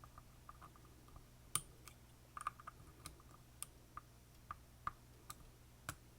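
Faint, irregular clicks of a lock pick working the pins of an Assa Twin Combi lock cylinder, about ten over the stretch, the loudest about a second and a half in.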